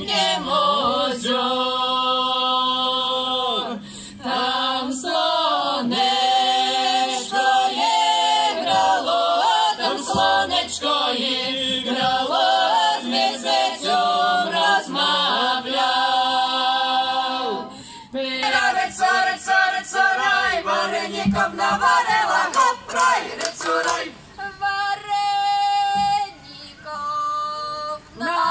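Folk vocal group in traditional costume singing a traditional song a cappella in Podlasie dialect, several voices together in long held phrases with short breaks between them.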